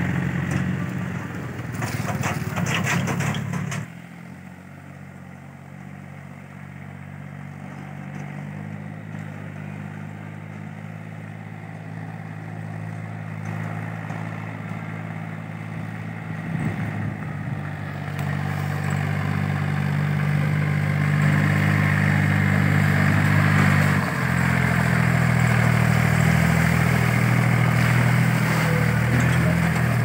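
Small four-wheel tractor's diesel engine running steadily as it pulls a trailer over a muddy track, with some clatter in the first few seconds. It drops to a distant sound about four seconds in, grows gradually louder as the tractor approaches, and is suddenly close and loud again after about 24 seconds.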